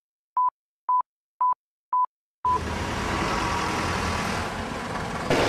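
A run of short, identical electronic beeps, about two a second, with dead silence between them, laid in as an edited sound effect with the on-screen time caption. About halfway through they give way to a steady rush of outdoor street noise, and a sudden louder burst comes near the end.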